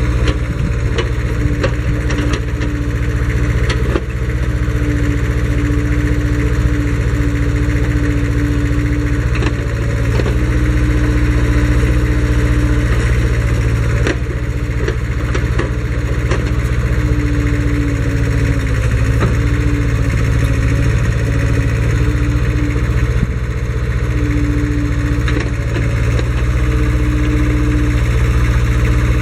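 Hukoto 250HD backhoe's engine running steadily. A steady tone sounds over it, coming and going for a few seconds at a time, and there are occasional light knocks.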